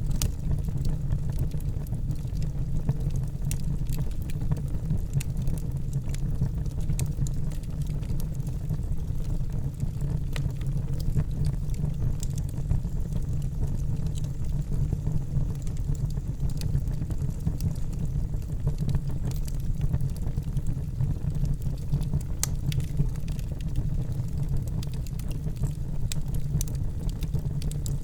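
Wood fire burning in a fireplace: a steady low rush of flames with frequent sharp crackles and pops from the burning wood.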